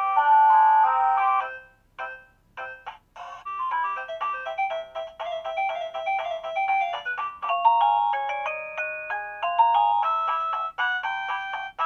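Guudgo GD-MD01 wireless doorbell chime playing electronic melodies in plain beeping notes. One tune stops abruptly just under two seconds in, a few short blips follow, and a new tune starts about four seconds in and plays on.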